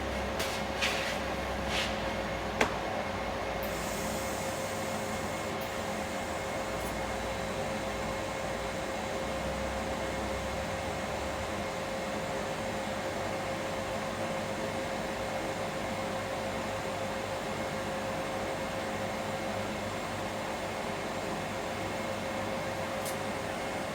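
Steady machine hum with a constant tone, with a few light clicks in the first three seconds.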